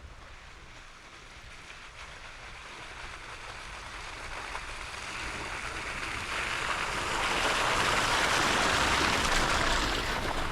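Jeep's tyres rushing through wet slush on a snowy dirt trail, a hissing, splashing noise that swells gradually over several seconds and eases off near the end.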